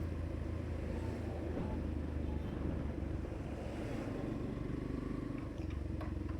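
Motorcycle engine running steadily at low speed, with road and traffic noise around it. A few faint clicks come near the end.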